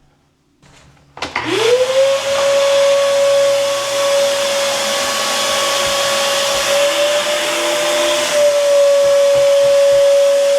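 Vacuum cleaner switched on about a second in, its motor whine rising quickly to a steady pitch over a strong rush of air, cleaning up debris from the freshly cut wall opening.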